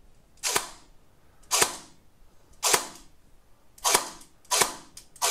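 Bare AK-type V3 airsoft gearbox, in its stock form without the ASCU, dry-firing single shots on a 7.4 V LiPo. It makes a series of short sharp bursts, mostly about a second apart, one for each trigger pull as the motor cycles the piston.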